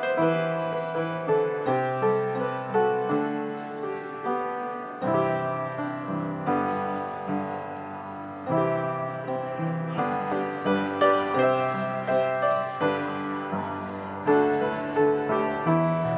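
Upright piano being played: held chords with a melody over them, new notes struck every second or so.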